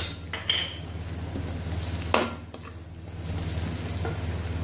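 Sliced onions sizzling in hot oil in an aluminium wok, stirred with a slotted metal spatula that clicks against the pan a few times.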